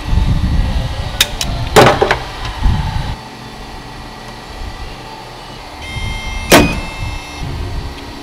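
Electric door hardware in a 1950 Chevy pickup door being tried out. In the first three seconds there is rumbling and several sharp metallic clunks. Near six seconds a steady motor whine starts, with one loud clunk inside it.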